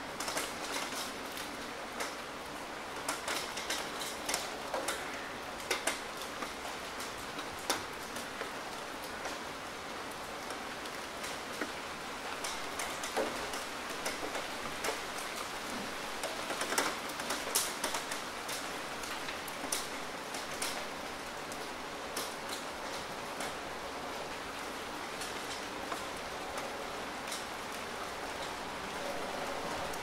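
Rain falling on a hard wet surface: a steady hiss with many sharp drop ticks and splats scattered through it, a few louder ones near the middle.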